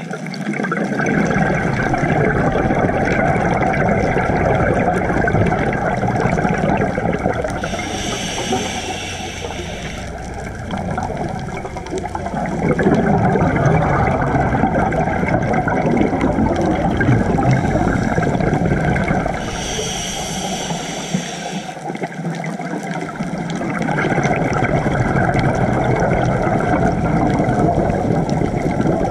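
Muffled underwater rushing and bubbling of scuba breathing through a camera's waterproof housing: a steady churn of exhaled bubbles, with two short hissing breaths from a regulator about eleven seconds apart.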